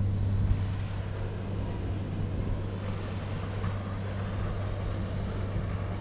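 Wind rushing over the microphone, with a steady low hum underneath.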